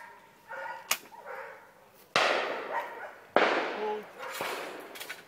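Two shotgun shots about a second and a quarter apart, each with a trailing echo, fainter and more distant than the shots fired close by just after. Before them, a sharp metallic click about a second in, like a break-action shotgun being snapped shut, and a brief voice.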